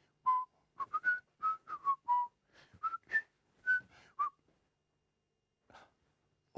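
A man whistling a tune: about a dozen short, clear notes stepping up and down in pitch for about four seconds, then stopping.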